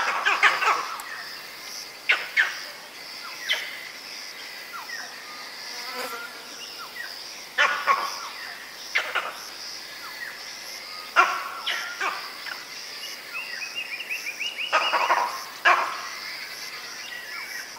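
Vervet monkey giving leopard alarm calls, mainly one monkey: short, sharp barks that come singly or in quick clusters every one to few seconds. Under them runs a steady, high insect drone.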